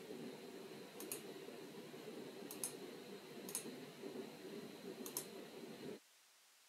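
Computer mouse button clicking about five times, most clicks a quick double snap of press and release, over a faint steady low hum. The audio drops out to silence near the end.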